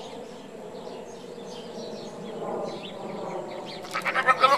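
A goat bleats once, a short wavering call about four seconds in, over faint bird chirps.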